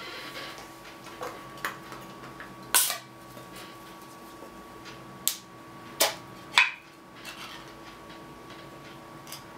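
Sharp clicks and knocks, about eight of them, from salted peanuts being handled. The loudest come near three seconds and six and a half seconds in, over a faint steady hum.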